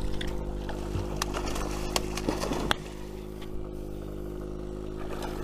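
A boat's engine running with a steady hum, with several sharp knocks and splashing in the first three seconds or so.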